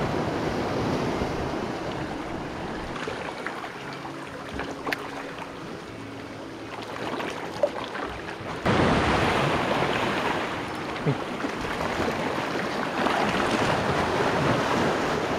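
Sea waves washing and breaking over shoreline rocks, with wind buffeting the microphone. The surf becomes suddenly louder a little past halfway.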